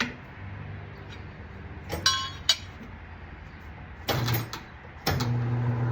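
Metal tools clinking, knocking and scraping against a motorcycle wheel rim while a rear tire is worked onto it, with one ringing clink about two seconds in.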